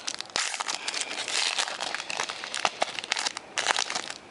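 Crinkling and rustling of a foil trading-card pack and its cards being handled, a dense run of quick crackles that stops near the end.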